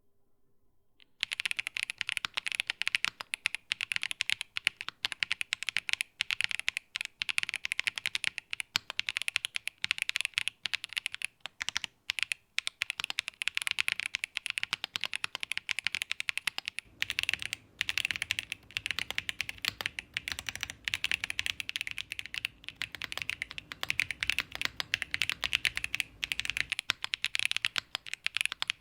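Matrix Lab 8XV 3.0 mechanical keyboard, with Dark Knight G-Square switches, GMK keycaps and an aluminium plate, being typed on at a quick, steady pace. The keystrokes start about a second in.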